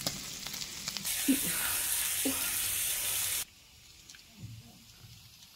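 Slices of beef sizzling on a hot grill pan: a steady hiss that cuts off suddenly about three and a half seconds in, followed by a few faint small clicks.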